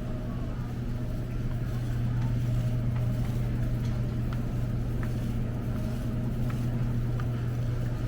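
A steady low machine hum over a constant background rumble, with a few faint ticks.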